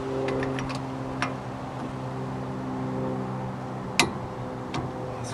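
Light metallic clicks and taps of hand tools and hub parts being handled at a car's front wheel hub, with one sharp click about four seconds in, over a steady low hum.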